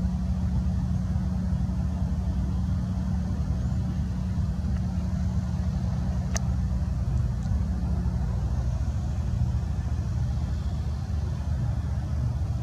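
Steady low hum of an idling engine. A single sharp click about halfway through.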